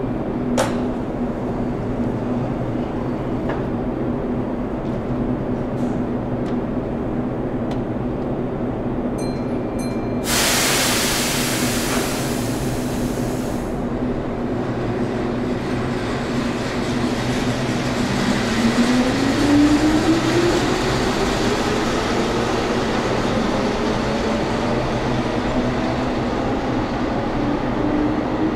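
Keihan electric train pulling out of an underground station after its doors close. A steady hum runs under a sharp click just after the start and a hiss of air lasting about three seconds, about ten seconds in. From about eighteen seconds a rising whine builds as the traction motors accelerate the train away.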